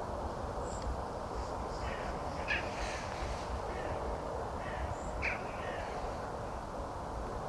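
A crow cawing twice, a harsh call about two and a half seconds in and another about five seconds in, with faint high chirps of a smaller bird. A steady low rush runs underneath.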